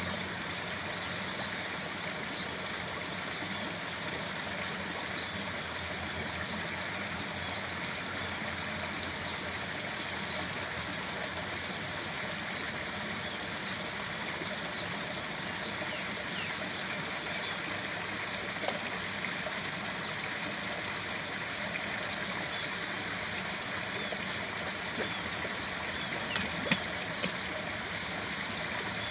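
Steady running and trickling water in a garden koi pond, with a few brief sharper clicks near the end.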